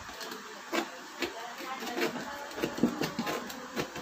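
Snap-off utility knife blade cutting through cardboard: a series of irregular scrapes and clicks as the blade is worked through a slot in a cardboard box.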